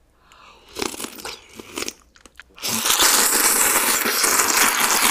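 Close-miked eating: wet chewing clicks of a mouthful, then from about two and a half seconds in a loud, continuous slurp as noodles in spicy broth are sucked up from a bowl.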